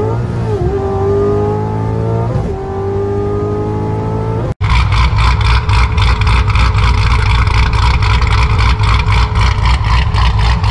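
Chevrolet Corvette C7 Z06's supercharged 6.2-litre V8 accelerating hard, its pitch climbing, dropping at an upshift about two seconds in, then climbing again. It cuts off abruptly and gives way to a loud, even pulsing beat, about three to four pulses a second.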